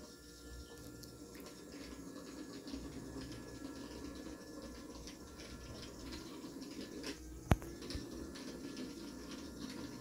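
Daiso budget robot vacuum running: a faint steady motor hum with light scratchy ticking, and one sharp click about seven and a half seconds in.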